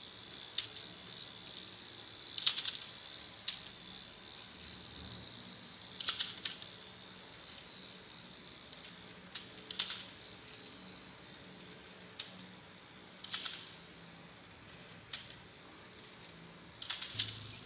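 Battery-powered Takara Tomy Zoids Wild Liger (ZW01) toy walking under its motor: a steady high whir with sharp plastic clicks in small clusters every second or two as its geared legs step.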